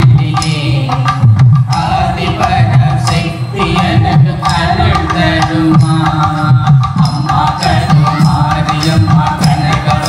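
Background music with hand-drum percussion keeping a steady beat under sustained melodic tones.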